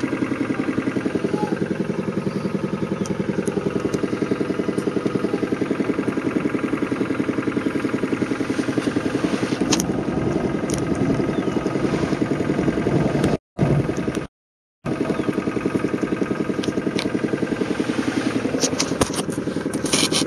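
Car engine running steadily, heard from inside the car, with a few scattered clicks. The sound drops out to silence twice, briefly, a little past the middle.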